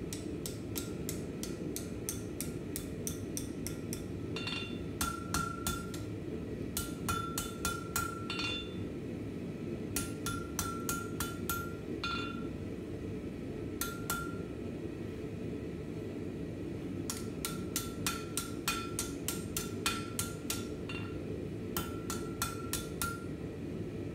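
Hand hammer striking red-hot steel on a JHM steel anvil, bending an integral knife D-guard into shape: quick bursts of several blows with short pauses between, the anvil ringing after the strikes. A steady low roar of the forge runs underneath.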